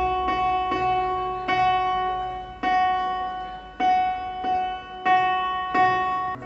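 Music: a single note on a musical instrument is played over and over, about nine times at an uneven pace, each note ringing out and fading.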